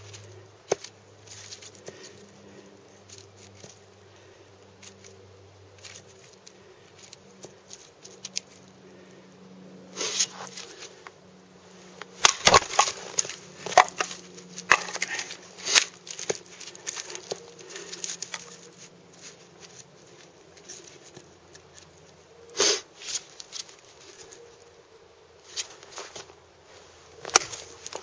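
Gedore Ochsenkopf OX 235 light forestry hatchet splitting firewood on a chopping block: scattered sharp knocks of the blade biting into wood and cracks of the wood splitting, with clatter of split pieces being handled between them. A busy run of knocks comes about halfway through, and single hard strikes near the end.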